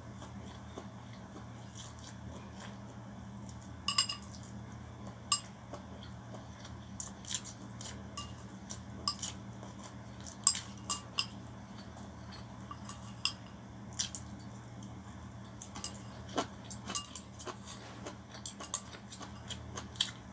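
Eating noodles with plastic chopsticks from a ceramic bowl: scattered sharp clicks and clinks of the chopsticks against the bowl, mixed with chewing and mouth sounds.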